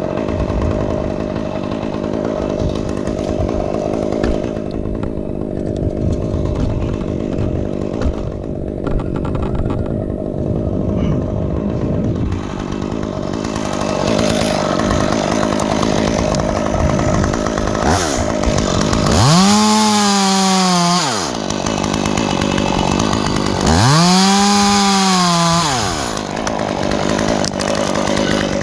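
Stihl chainsaw running throughout, its engine note wavering under load, then revved up to full throttle twice near the end, each burst lasting about two seconds before dropping back.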